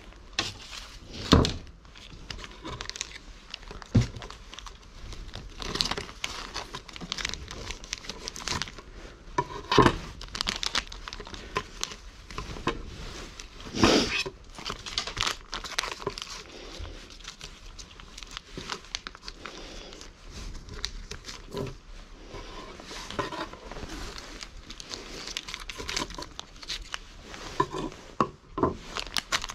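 Foil cat-food pouches being torn open and crinkled by hand, a continual crackly rustle, with a few loud sharp knocks.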